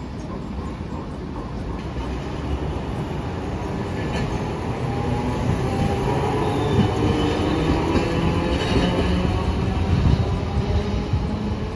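Hiroden 1900-series streetcar passing close on street-running track, its wheels rumbling on the rails and its motor whine rising in pitch. The sound grows louder and is loudest in the second half.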